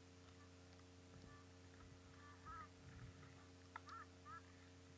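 Near silence over a steady low hum. Distant birds call faintly several times from about a second in, and there are a few soft low thuds and one sharp click.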